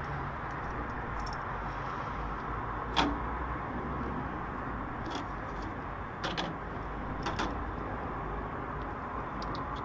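A few sharp metallic clicks and taps from handling battery-terminal hardware, one louder click about three seconds in, over a steady background hiss.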